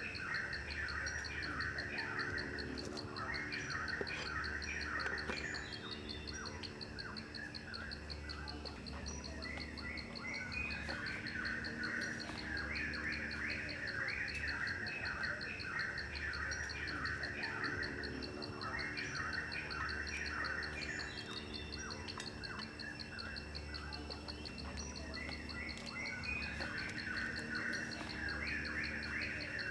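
Birds chirping in repeated bursts over a steady, fast, high-pitched insect trill. Low, held tones sound underneath.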